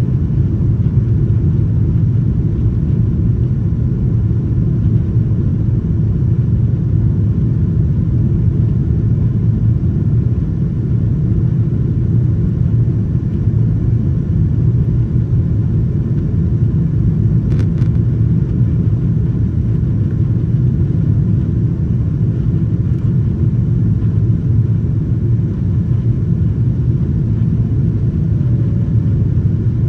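Steady low roar of a Boeing 777-200's twin jet engines and the rushing air, heard inside the cabin behind the wing during the climb just after takeoff.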